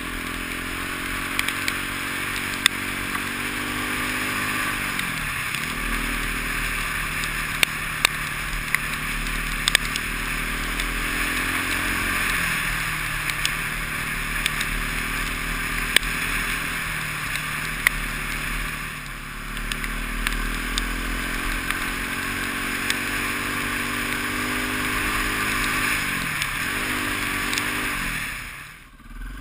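KTM enduro motorcycle's engine running hard on the throttle, its pitch climbing as it pulls and dropping sharply each time the throttle is shut, about three times. Wind noise on the helmet camera runs under it, with scattered sharp ticks, and the sound falls away just before the end.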